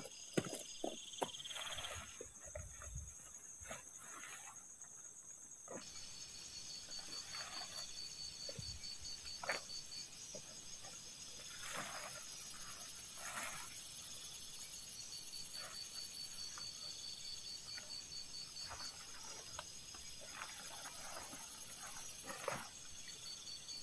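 Night forest chorus of calling insects and frogs, a steady high pulsing trill, with scattered rustles and clicks from the nylon tent and its poles being handled as the tent is pitched.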